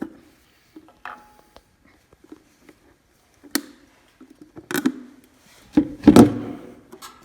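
A few separate knocks and clunks of handling work, loudest in a short cluster about six seconds in, with quiet gaps between them.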